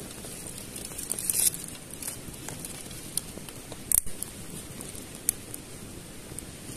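Dry pine-needle tinder crackling as it catches and flares up, with scattered sharp pops; the loudest pop comes about four seconds in.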